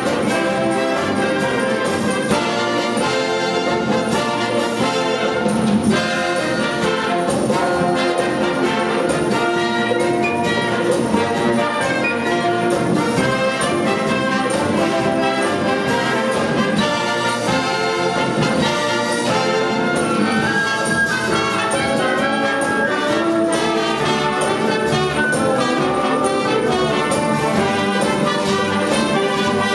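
Wind band playing a lively piece, with brass and woodwind together and no let-up.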